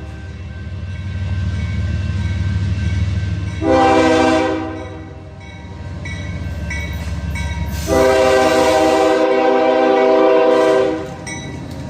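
Diesel locomotive's multi-chime air horn sounding a short blast about four seconds in, then a long blast of about three seconds, over the low rumble of the accelerating train.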